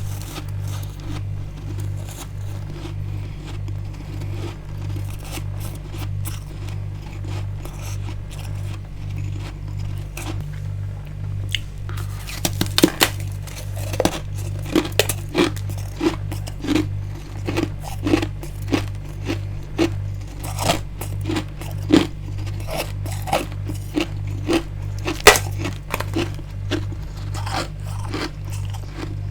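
Built-up freezer frost being bitten and chewed: fine scraping crunches at first, then many sharp, loud crunches from about twelve seconds in. A low, evenly pulsing hum runs underneath.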